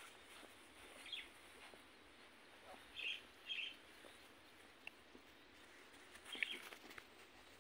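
A bird chirping faintly: about four short high chirps scattered over a quiet background, the loudest one about six seconds in.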